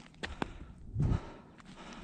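Footsteps on stony ground patched with snow: two sharp clicks in the first half second, then a heavier thudding step about a second in.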